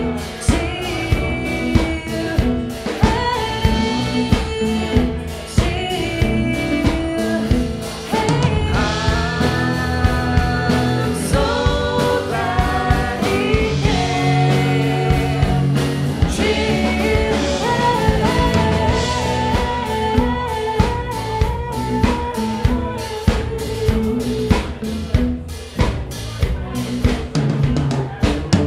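A live band playing: a lead line on an electric guitar over a drum kit keeping a steady beat, with acoustic guitar, keyboard and singing.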